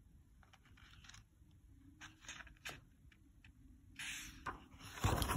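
Paper pages of a picture book being turned by hand: faint ticks and soft rustles, then a louder rustle of paper about four seconds in, with a low thump near the end.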